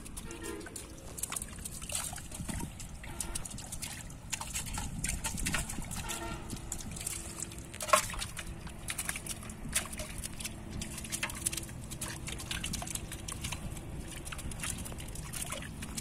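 Pond water sloshing and trickling as hands work through a seine net full of fish and prawns, with scattered small clicks and taps and one sharper tap about halfway through.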